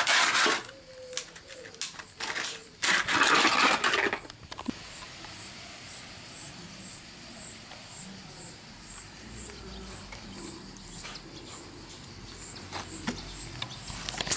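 A puppy biting and crushing an empty plastic water bottle: loud crinkling crackles right at the start and again about three seconds in. A faint high pulsing, about two pulses a second, continues through the rest.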